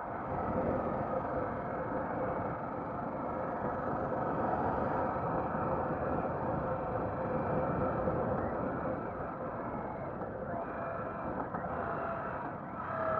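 Harley-Davidson Sportster's V-twin engine running at road speed, heard from the handlebars under steady wind noise. The bike eases off and slows near the end.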